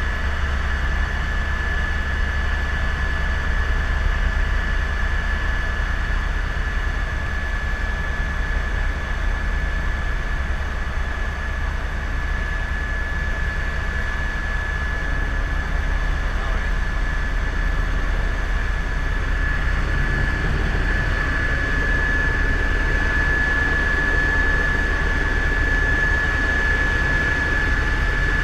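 Helicopter in flight: a steady low drone of engine and rotor with a constant high-pitched whine.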